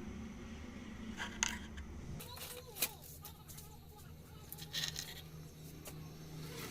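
A handful of small clicks and short scrapes over a low steady hum, the sharpest about a second and a half in and near three seconds. This is hand tools and a small BC558 transistor being handled on the workbench as the transistor is fitted to the amplifier board.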